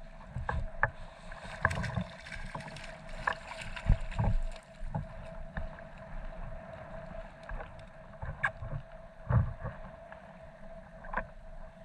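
Small knocks and thumps of gear being handled aboard a sit-on-top fishing kayak, with water slapping the hull and a faint steady hum. The loudest knocks come about four seconds in and again near nine and a half seconds.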